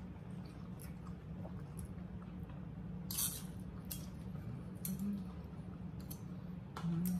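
Forks and a knife clicking and scraping against plates while two people eat, with a longer scrape about three seconds in, over a steady low hum.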